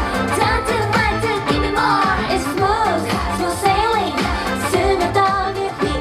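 K-pop song with a woman singing over a steady beat.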